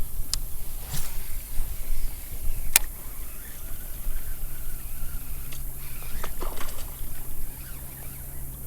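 Water sloshing and trickling around a kayak, with three sharp knocks against the hull in the first three seconds and some softer scraping later.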